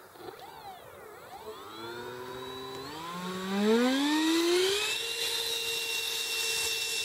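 Electric 90 mm ducted fan of a radio-controlled jet spooling up: its whine goes briefly up and down near the start, then rises steadily in pitch and loudness over a few seconds and holds at a steady high pitch at full throttle for the takeoff run.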